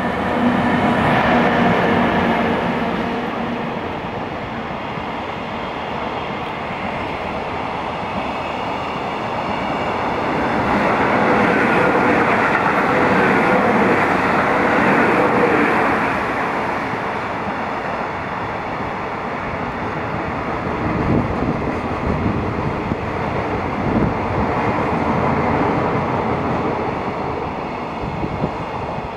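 EF64 electric locomotive and its freight wagons passing close by on the rails: a continuous loud rolling rumble that swells twice. Wheels clack over rail joints in the last third.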